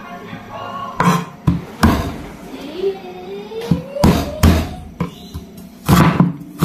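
Irregular hard knocks of a knife on a chopping board as fresh ginger is cut, about seven strikes coming in small clusters.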